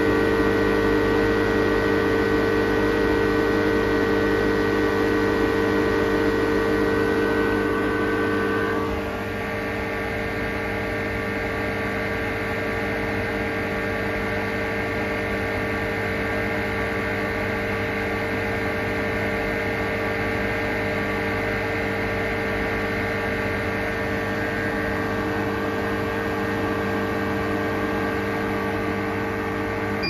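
Fieldpiece MR45 refrigerant recovery machine running: a steady motor-and-compressor hum with several pitched tones. About nine seconds in the tones shift and it runs a little quieter.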